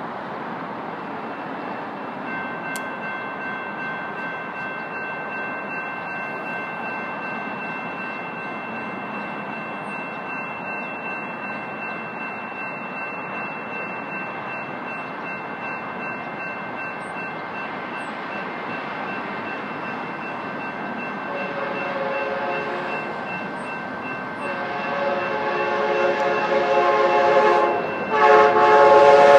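Multi-chime locomotive horn of an approaching passenger train, sounding in long blasts that grow louder over the last several seconds, with a short break near the end. Before the horn there is a steady rumbling hum with faint, steady high tones.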